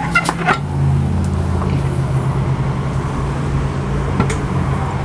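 Metal knocks and clunks as an outboard's lower unit is pushed up into the midsection and worked to line its drive shaft up with the power head: a cluster near the start and another about four seconds in, over a steady low hum.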